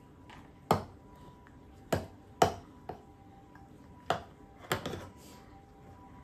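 A hard plastic toy apple knocked and banged on a plastic high chair tray by a baby: about seven sharp, irregular knocks, the loudest in the first two and a half seconds, with a double knock near the end.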